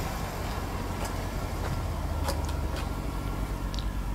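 Steady low hum of the 2011 Jaguar XF's 5.0 L V8 idling, heard from beside the car, with a few faint clicks as the trunk lid is opened.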